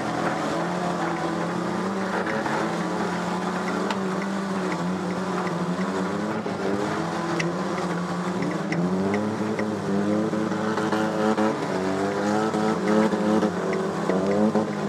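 Stock car engine heard from inside the cockpit, running steadily at first, then revving up and falling back again and again in the second half. Scattered sharp ticks and knocks over it.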